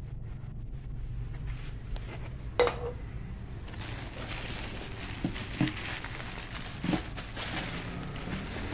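Plastic wrapping crinkling and rustling as wrapped welder parts are handled in a cardboard box, with one sharp ringing knock about two and a half seconds in and a few softer knocks later. A steady low hum runs underneath.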